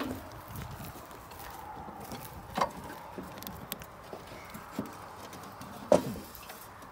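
Sheet-metal meter base enclosure being handled on its wooden post: two sharp metallic knocks with a short ring, the second, near the end, the louder, and a few lighter clicks between them.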